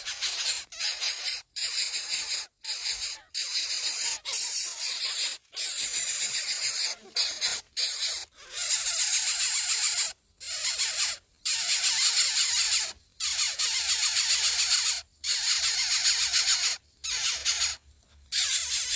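Nestlings giving raspy, hissing begging calls in long loud stretches, broken by short sudden silences.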